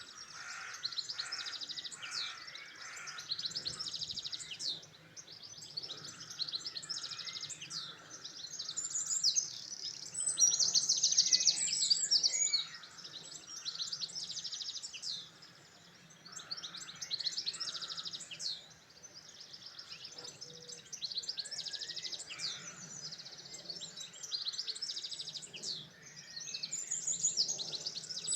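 Songbirds singing in a steady run of high, rapid trilled phrases a few seconds long, one after another with brief pauses, the loudest phrase near the middle.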